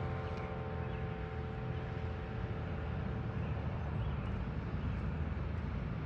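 The ring of a church bell dying away over the first couple of seconds, over a steady low rumble.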